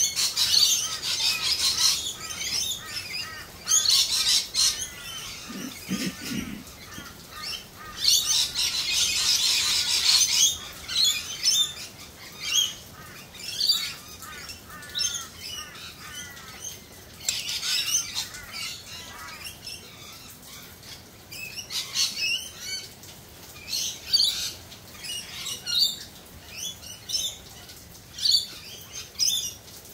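Garden birds calling: rapid chirps and short repeated notes throughout, thickening into dense, overlapping chatter at the start and again about eight to ten seconds in, with a brief lower call about six seconds in.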